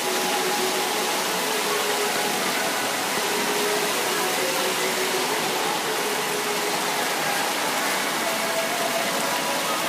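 Water fountain splashing steadily, a constant even rush of falling water.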